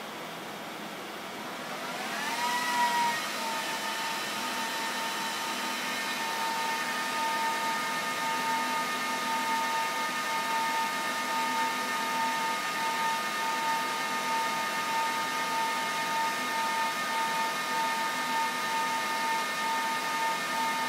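HP ProLiant DL rack server's cooling fans spinning up during power-on self-test. About two seconds in, the whine rises in pitch, then holds as a steady high whir at full speed.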